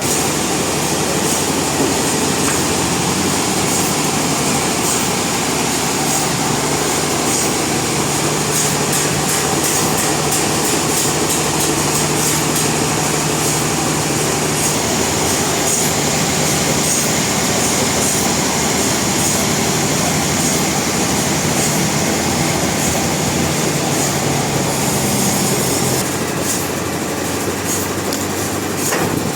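Sawmill machinery running steadily, a continuous hum with a high hiss over it, easing slightly a few seconds before the end.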